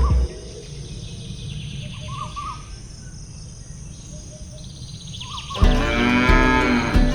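Cow mooing loudly, one long call starting a little more than three-quarters of the way in. Before it, a few faint short bird chirps sound over a low background hum.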